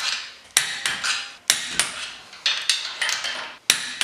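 Torque wrench and socket tightening the 3/8-inch locking hub bolts on a Jeep CJ7 Dana 30 front wheel hub to 30 ft-lb: an irregular series of sharp metallic clicks and clinks, about two to three a second, each ringing briefly.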